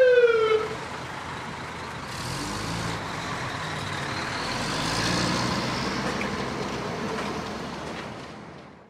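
Fire engine siren winding down, its pitch falling and dying away within the first second, followed by the rumble of a large truck's engine that swells a little around the middle and then fades out near the end.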